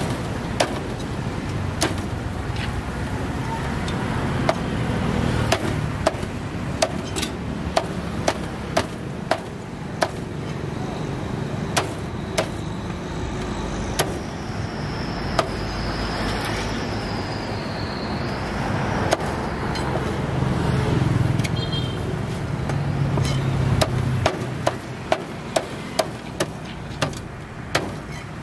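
Sharp short knocks at irregular intervals, about one every second or so, with a quicker run near the end. Underneath is the steady noise of road traffic, and a vehicle passes more loudly a little past the middle.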